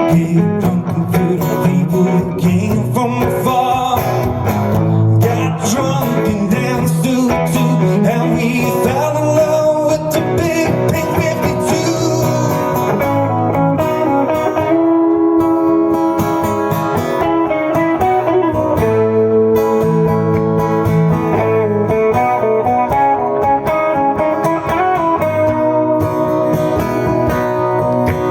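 Live band playing an Americana song, with guitar to the fore.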